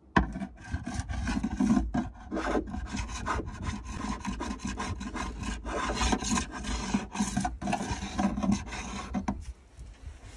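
Narrow steel chisel blade scraping old adhesive and scraps of the removed deck plates off a fiberglass boat deck, in rapid repeated strokes that stop about nine seconds in.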